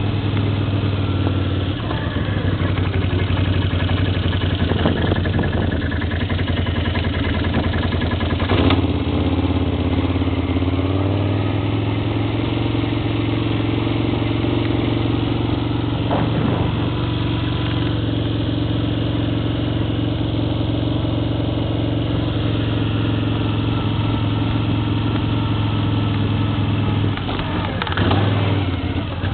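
ATV engine running steadily under way, its note shifting briefly with changes in throttle a few times.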